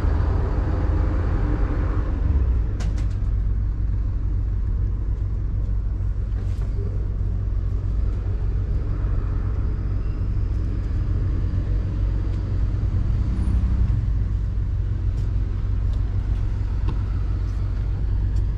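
Wind buffeting the camera microphone: a steady low rumble that swells and dips, with a few faint clicks.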